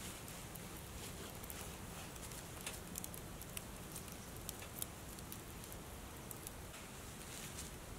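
Wood fire crackling in a small titanium wood-burning stove, with irregular sharp pops and ticks over a quiet steady background.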